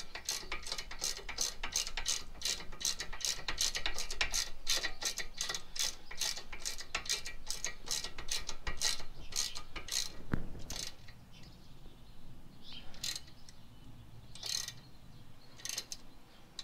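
Hand ratchet wrench clicking steadily, about three clicks a second, as it backs out a front brake caliper bolt by hand. The run of clicks stops about ten seconds in, and only a few single clicks follow.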